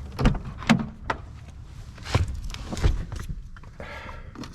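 Scattered footsteps, knocks and clicks, about half a dozen sharp taps, with the loudest one under a second in.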